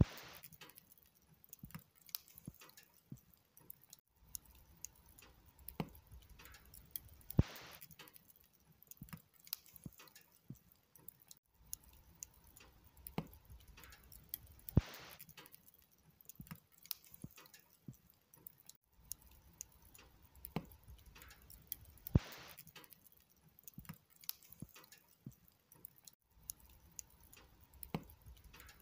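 Log fire crackling, a steady scatter of small snaps and ticks with a sharper pop from the burning wood three times, about seven seconds apart.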